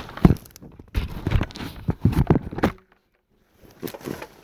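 Footsteps: a run of irregular crunching steps, broken about three seconds in by half a second of dead silence, with a few fainter steps after it.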